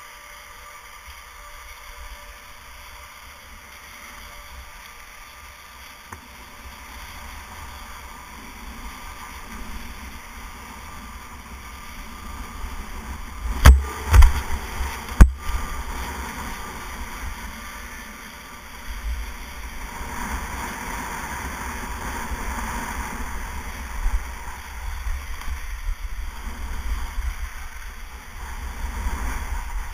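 Skis sliding and scraping over packed snow, with wind buffeting an action camera's microphone as a low rumble that grows with speed. Three sharp knocks come about halfway through as the skier rides over a park feature, then the scraping of ski edges on snow grows stronger.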